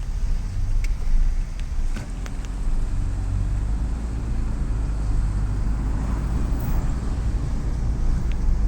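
Car driving in heavy rain: a steady low rumble of engine, tyres and wind, with a few sharp ticks about two seconds in and again near the end.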